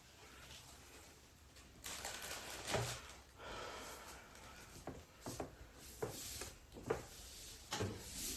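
Faint rustling with scattered light clicks and knocks, the sound of things being handled and moved about.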